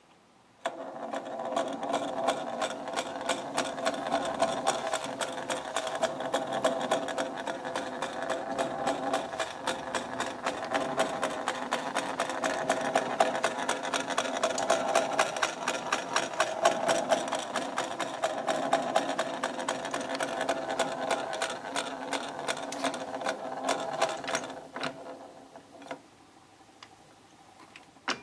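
1907 Duskes Vitograph 35mm projector's friction intermittent movement and gear train running: a fast, even mechanical clatter with a whirring hum that swells and eases about every two seconds. It starts about half a second in and runs down and stops near the end.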